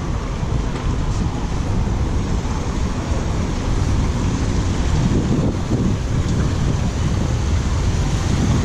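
Wind buffeting the camera's microphone: a steady, rumbling rush that swells and eases.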